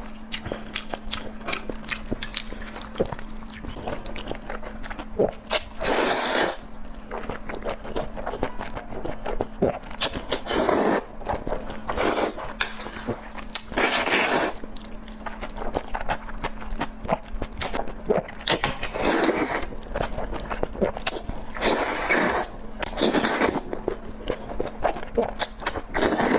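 Close-miked mukbang eating: biting and chewing with many small wet clicks, broken by about half a dozen louder half-second bites or slurps. A steady low hum runs underneath.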